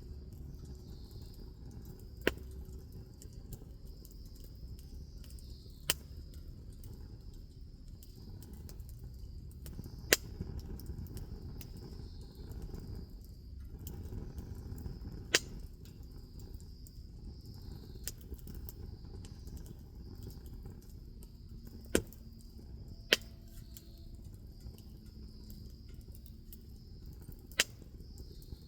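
Wood bonfire burning with a low rushing noise and a sharp pop about every few seconds as the wood cracks. A steady high chirring of insects runs behind it.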